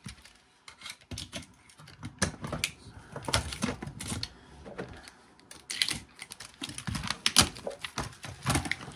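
Irregular sharp clicks and crackles, in clusters, of hands prying and peeling the thin driver circuit-board strip off the edge of a laptop LCD panel.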